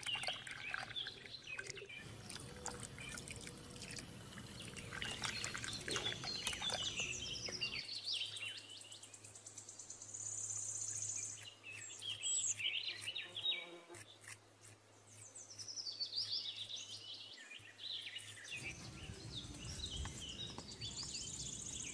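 Birds chirping and calling again and again in short, falling phrases, with brief high trills. Faint wet scraping and tapping sounds come from wet cement being packed by hand.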